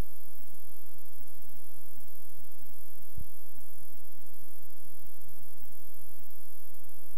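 Steady hiss and electrical hum with a few faint steady tones: the noise of a blank video signal. One click about three seconds in.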